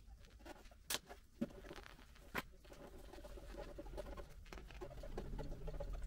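Handling noise of a printed vinyl sticker skin being pressed onto a computer case panel by hand: faint irregular crackling and rustling, with three sharp clicks in the first two and a half seconds.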